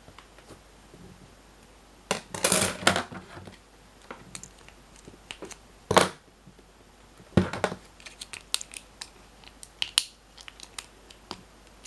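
Steel lock pick and tension wrench clicking and scraping in the keyway of a brass Viro 50 mm cylindrical padlock, in irregular sharp clicks and short scrapes, the loudest clusters about two, six and seven and a half seconds in, with a patter of small ticks near the end. It is the sound of picking the single top security pin while the four lower pins are held set.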